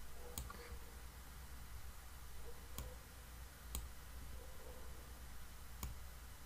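Faint, sharp computer mouse clicks, about four spaced a second or two apart, over a low steady room hum.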